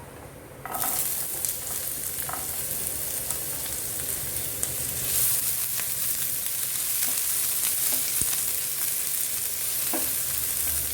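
Chopped onion sizzling in hot oil with cumin seeds in a cooking pan. The sizzle starts suddenly about a second in as the onion goes into the oil, then stays steady, with a few short clinks of a spoon or spatula against the pan.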